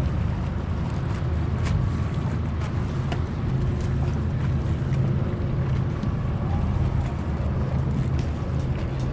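Boat motor running steadily at an even, low pitch.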